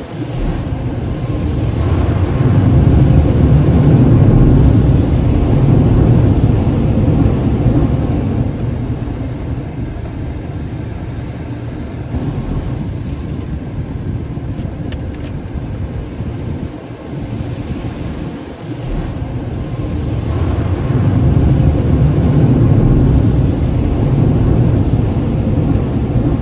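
Automatic car wash heard from inside a pickup truck's cab: a loud, rushing wash of water spray and washing machinery on the truck's body and bed cap. It swells loud twice, with a quieter stretch in the middle.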